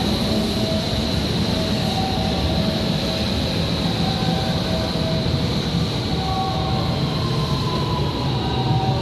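Electric commuter train running through the station, a steady loud rail noise with a thin high tone over it and a faint whine that falls slowly in pitch in the second half.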